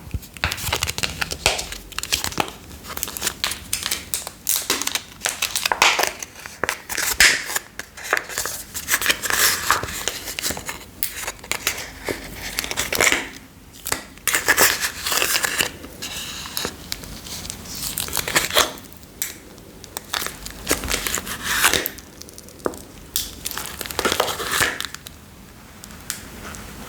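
Slime being made by hand: irregular crackling, crunching and crinkling noises that come in uneven bursts.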